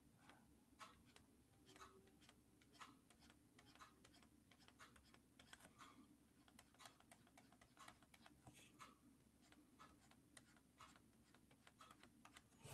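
Faint, irregular light clicks, about one or two a second, over a low steady hum.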